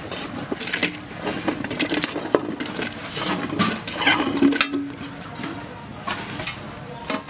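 Cauliflower florets dropping into a steel pot of hot salted water in quick, irregular splashes, with light clinks from the steel plate they are pushed off. The splashes thin out after about five seconds.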